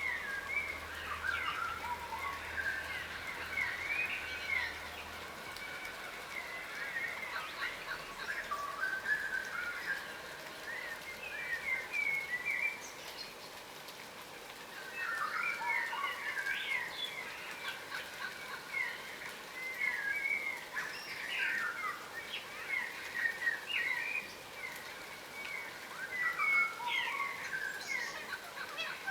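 Yellow rosellas, a subspecies of crimson rosella, chattering while feeding on the ground. Many short chirps and whistles come in bursts, with brief lulls between them.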